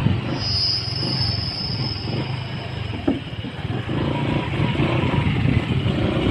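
Motorcycle engine running as the bike rides over a wooden plank bridge, with a high steady whine for the first two seconds or so and a single knock about three seconds in.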